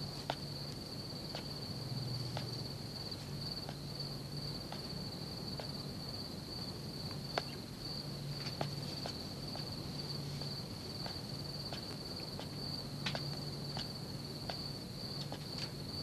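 Crickets trilling steadily, with scattered faint sharp clicks and a faint low hum that comes and goes.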